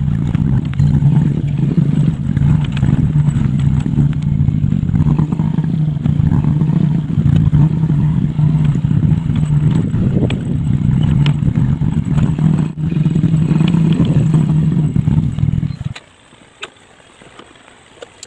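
A small petrol engine running at a steady speed. It stops abruptly about three-quarters of the way through, leaving only faint clicks.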